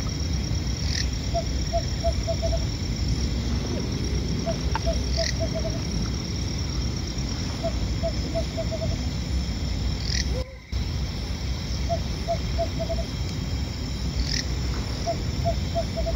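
Night forest ambience: an animal call of four or five short, evenly spaced low notes repeats every three to four seconds, over a steady high insect drone and a low rumble. A few brief falling chirps recur every few seconds.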